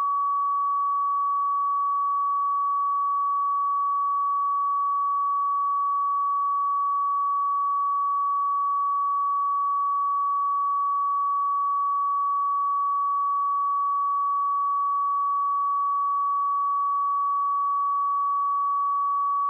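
A pure 1133 Hz sine-wave test tone, one steady unbroken pitch at constant level.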